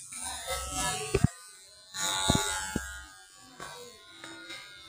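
Electric hair clippers buzzing while they cut short hair on the back and side of a man's head, with a few sharp clicks.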